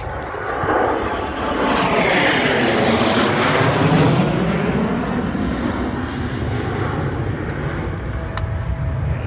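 F-16 fighter jet engine making a low, fast pass: a loud jet rush that swells over the first few seconds, peaks around three to four seconds in, then slowly fades with a sweeping, phasing quality.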